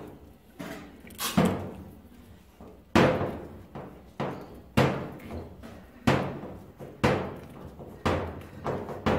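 A series of dull knocks, roughly one a second, as a PVC kitchen gas hose is twisted and worked onto a metal hose fitting, the hand and hose bumping against the stove's sheet-metal side.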